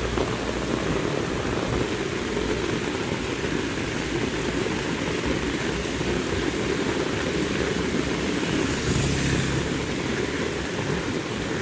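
Heavy rain falling steadily, a dense unbroken patter.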